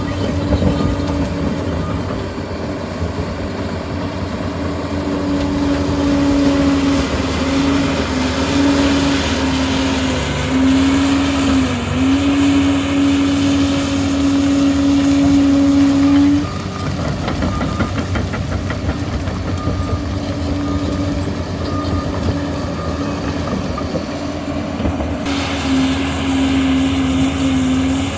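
Liebherr PR 746 crawler dozer at work, its engine running steadily. A high whine rides on the machine noise from about five seconds in, drops out around sixteen seconds and returns near the end.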